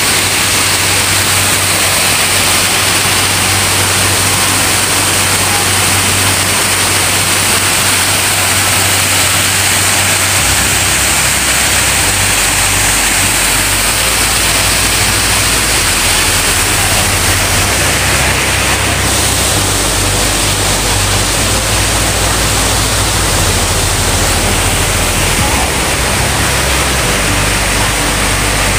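Artificial garden waterfall pouring into a pond: a loud, steady rush of falling and splashing water.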